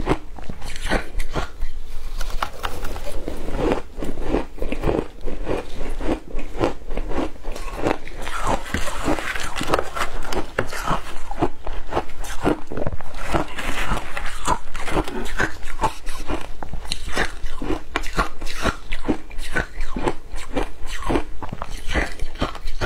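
Shaved ice dusted with matcha being bitten and chewed: a rapid, continuous run of crisp crunches.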